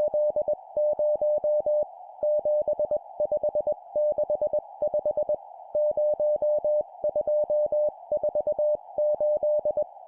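Morse code sent at 20 words per minute: a single steady beep keyed on and off in dots and dashes, spelling groups of four digits with short pauses between groups, over a faint hiss.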